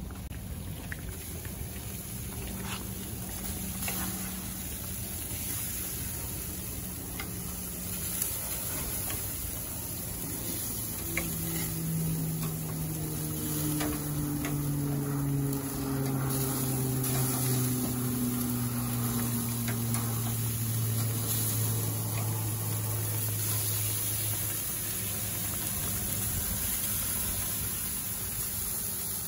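Kebabs sizzling on a gas grill and chapli kebabs frying in a pan of oil, a steady hiss. About a third of the way in, a low hum rises in loudness and slides slowly down in pitch over roughly ten seconds before fading.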